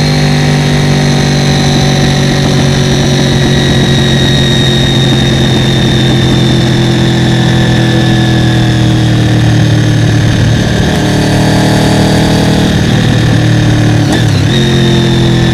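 Honda VFR800FI's V4 engine running under way at steady mid revs, its pitch sagging slowly, with a brief dip and recovery near the end, as at a gear change or a throttle lift.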